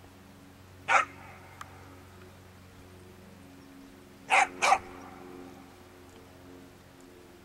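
A dog barking: one sharp bark about a second in, then two quick barks close together a few seconds later, over a steady low hum.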